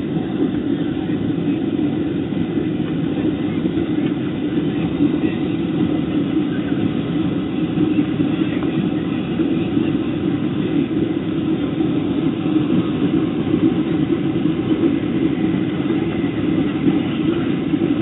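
Jet airliner's engines and airflow heard from inside the cabin as a steady low noise during the climb after takeoff.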